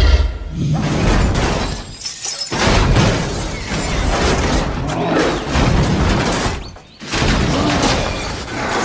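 Loud crashing and shattering noise in three long stretches, broken by short pauses about two and seven seconds in.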